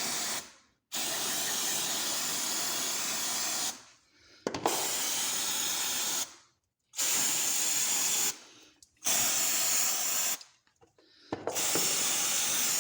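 Aerosol brake cleaner sprayed in repeated bursts of a second or two to about three seconds, a loud hiss that stops and starts about six times, with a short sharp tick as one burst begins. The cleaner is flushing out a disc brake caliper's working area.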